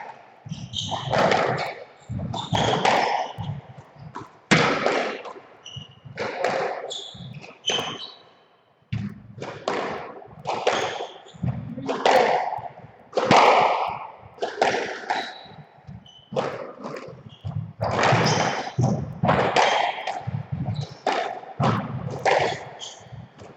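Squash rally: the ball cracks off rackets and smacks against the court walls every half second to second, each hit ringing briefly in the court, with players' footsteps and short shoe squeaks on the wooden floor.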